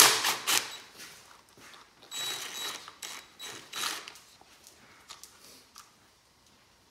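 DeWalt cordless drill spinning a socket on the motorcycle's bolts in three short runs, the first at the very start the loudest, with a motor whine in the second run about two seconds in. Lighter clicks and rattles of parts being handled follow.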